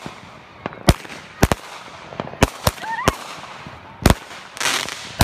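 Fireworks going off: about eight sharp bangs at irregular intervals, with a short hissing crackle about four and a half seconds in.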